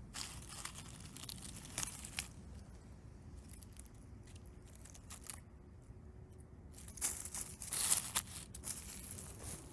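Dry leaf litter and twigs on a forest floor rustling and crackling under a hand, in scattered bursts, the loudest near the end.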